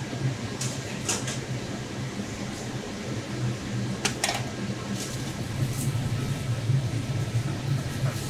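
Steady low hum of a kitchen ventilation fan, with a few short clatters about a second in and again about four seconds in.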